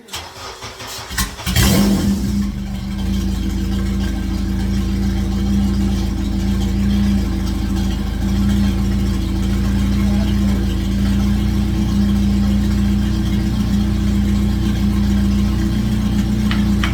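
K-swapped Honda Civic's K-series engine cranking briefly, catching about a second and a half in, then settling into a steady idle. It starts and runs on the replacement engine harness, which cured the no-spark problem.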